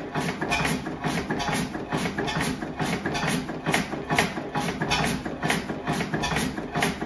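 Blackstone 3 hp single-cylinder vertical oil engine running steadily, with an even beat of sharp knocks about twice a second.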